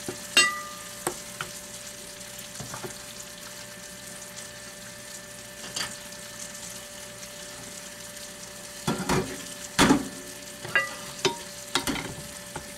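Oil sizzling steadily in a frying pan, with a serving spoon clinking and clattering against dishes several times: a ringing clink right at the start and a louder run of clatter about nine to twelve seconds in.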